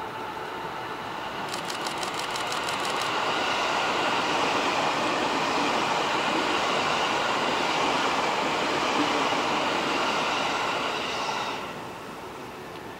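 E653 series electric train passing at speed: a steady rush of wheels on rail that builds over the first few seconds, with a brief fast ticking about a second and a half in, and drops away near the end.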